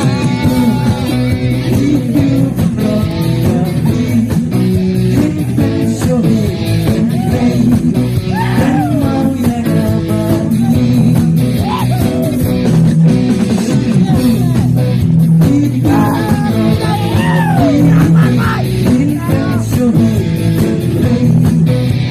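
Live rock band playing: electric guitars, bass guitar and a drum kit, with a male singer on a microphone over parts of it.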